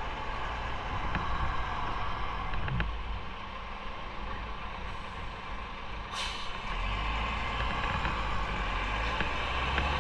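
Steady road and engine noise from riding a motorcycle in traffic, with a short sharp hiss about six seconds in.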